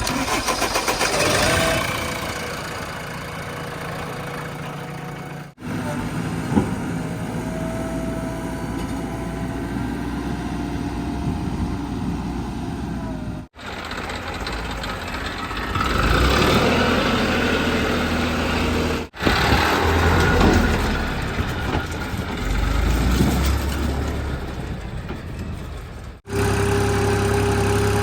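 Heavy diesel engines of earth-moving machinery running, idling and revving up in turns. The sound is a string of short clips that cut off sharply several times.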